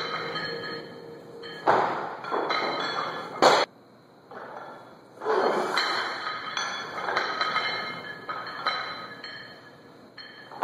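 Background music, with a single sharp knock about three and a half seconds in. Right after it the sound drops low for about a second and a half, then the music returns.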